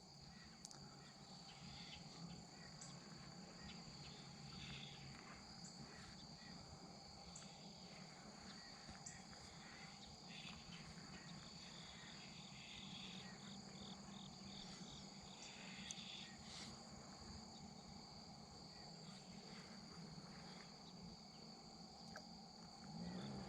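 Faint, steady high-pitched insect chorus, with a few faint ticks scattered through it.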